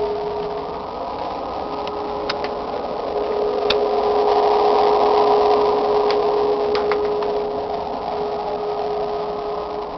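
Unidentified loud, steady drone: one held tone with a rougher droning band above it that swells in the middle and eases off again, with a few faint clicks. Its source is unknown.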